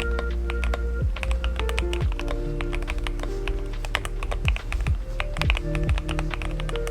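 Typing on a modified Rakk Haribon mechanical keyboard fitted with Domikey Deep Sea switches and GLOVE x Fading keycaps: a quick, uneven run of key clacks, several a second, over background music.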